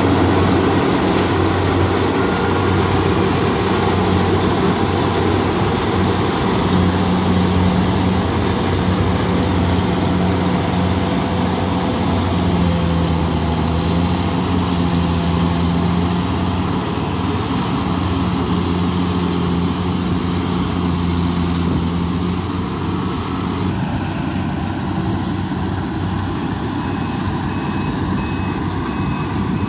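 Kubota rice combine harvester running steadily under load as it cuts and threshes, a constant engine hum under a thick mechanical rattle and rush. It grows fainter in the second half as the machine moves away, and a high beeping repeats near the end.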